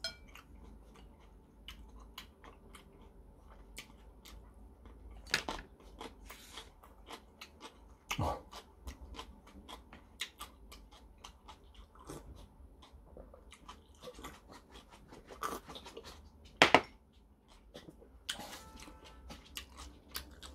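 Close-miked mouth sounds of a man eating jajangmyeon: chewing and lip-smacking as many small sharp clicks. A few louder knocks stand out, the loudest about seventeen seconds in.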